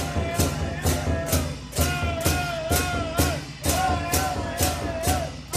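Temple procession drum pavilion: a large drum beaten in a steady beat, with a wavering melody line carried above it.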